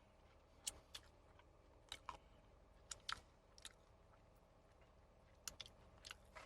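Faint mouth sounds of chewing: a dozen or so soft, irregular clicks and smacks as the last of a maple bacon snack is eaten.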